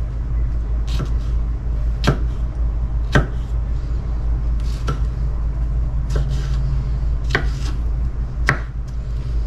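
Kitchen knife chopping tomato on a wooden cutting board: seven separate strokes, about one a second, each a sharp tap of the blade against the wood. A steady low hum lies underneath.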